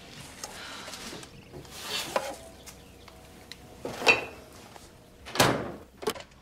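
A refrigerator door is handled and a plastic-wrapped package is taken out: rustling and a few knocks, the loudest a full thud a little over five seconds in.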